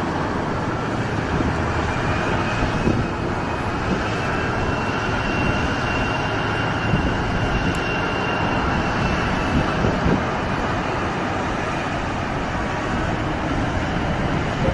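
Heavy mining haul truck machinery running: a steady drone of large diesel engines, with a faint high whine that swells and fades over several seconds.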